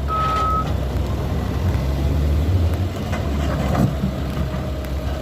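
Heavy truck engine running steadily, with a single reversing-alarm beep right at the start.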